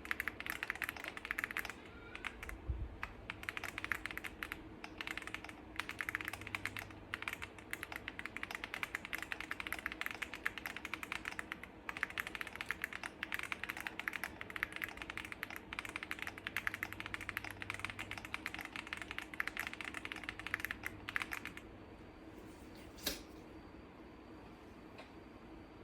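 Continuous fast typing on an Enter67 mechanical keyboard kit with full stock foam, each keystroke a 'creamy pop'. The typing stops about four-fifths of the way in, and one sharp click follows a little later.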